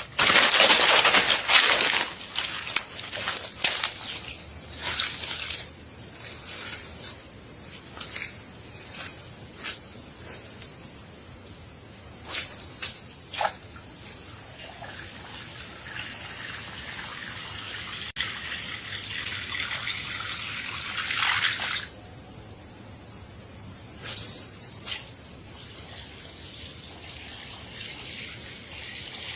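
Splashing on open water, loudest in the first two seconds, with several shorter splashes later, over a steady high insect drone.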